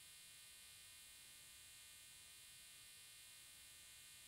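Near silence: a faint, steady hum and hiss of the recording, with no distinct sound events.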